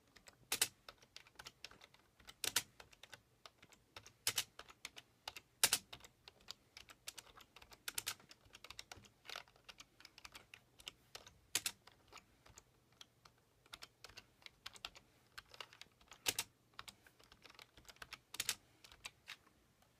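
Typing on a computer keyboard: irregular key taps, with a handful of louder, sharper keystrokes scattered through.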